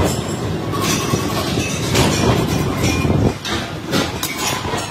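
Mechanical power press stamping steel sprocket blanks: repeated heavy metal clanks over the continuous din of running factory machinery.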